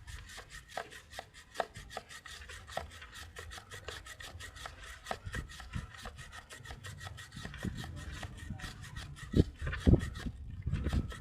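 A three-sided chain-cleaning brush scrubbing a motorcycle drive chain, with a quick run of faint clicks as the chain is worked along, and a few louder low knocks near the end.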